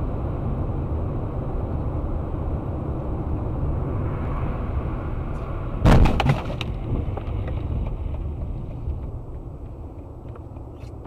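Steady road and engine noise of a moving car, then a sudden loud crash about six seconds in: a quick cluster of impacts lasting under a second, typical of a vehicle collision caught on a dash cam. The noise dies down over the last couple of seconds.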